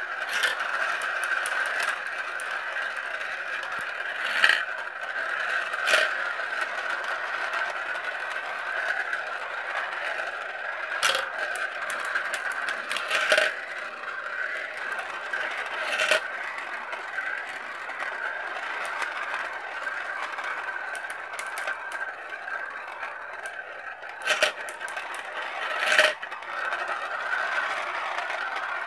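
Marbles rolling round the red plastic spiral funnels of a marble run, a steady rolling whir. About seven sharp clacks come at irregular moments as marbles drop through the funnel holes and strike the marbles piled in the bowl below.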